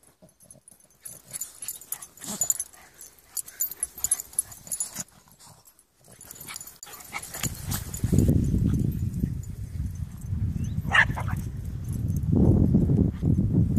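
Small dogs scrabbling and digging in loose sand, heard as scattered scratchy clicks and scuffs. A low rumble of wind on the microphone follows, and about eleven seconds in a dog gives one short yip.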